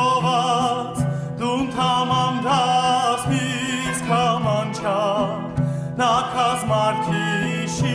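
An Armenian folk song played by a traditional ensemble: a wavering, ornamented melody with vibrato over a steady low drone, in phrases with short breaks between them.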